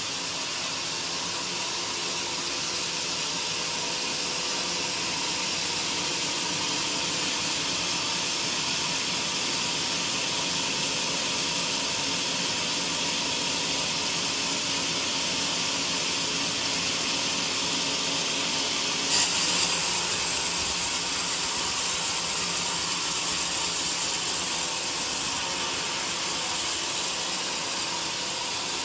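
Band sawmill blade running steadily through a thick joar hardwood timber, a continuous hissing saw noise with a faint steady whine under it. About two-thirds of the way through, the sound steps up and turns brighter.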